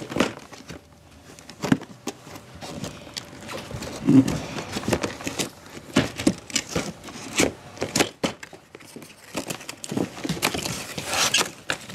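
A cardboard toy box and its packaging being handled and opened: scattered taps and knocks, with rustling and crinkling near the end.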